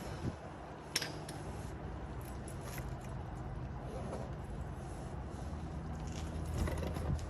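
A few sharp light clicks, about a second in and again near three seconds, of parts being handled under the car, over a steady low hum that grows a little stronger toward the end.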